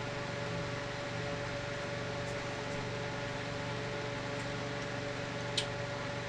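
Steady room background hum and hiss with a faint steady tone, and one small click about five and a half seconds in.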